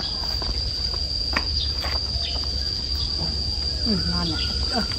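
Insects droning steadily on one unbroken high-pitched note, over a steady low hum.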